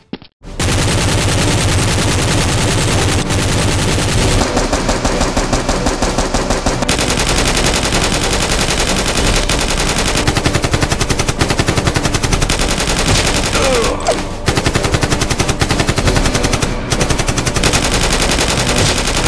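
Rapid automatic gunfire sound effects, dubbed in for a staged Nerf blaster shootout, firing almost without a break after a short silence at the very start, with a brief pause about two-thirds of the way through.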